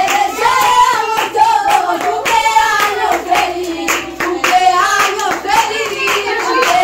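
A group of adults and children singing a birthday song together, with steady rhythmic hand clapping in time.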